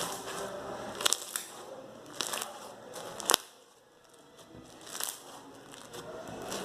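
Foam slime with polystyrene beads being squeezed and worked in the hands, crackling softly, with about five sharp pops.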